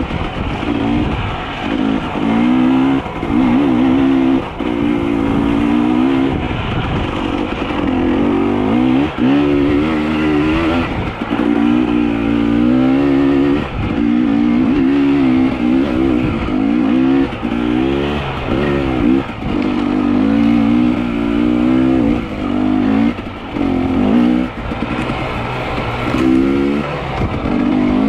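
A small petrol engine revving up and down again and again, its pitch wavering, with short drops between revs.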